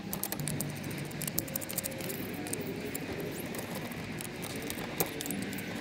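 Light, scattered clicks and rattles from handling a plastic circuit breaker, its wires and a screwdriver.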